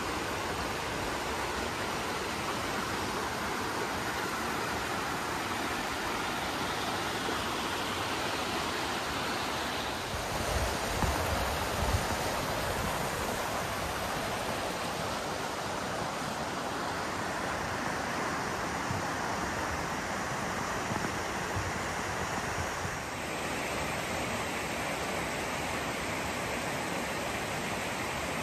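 Steady rushing of a mountain stream or waterfall, an even wash of water noise, with a few brief low bumps about a third of the way in.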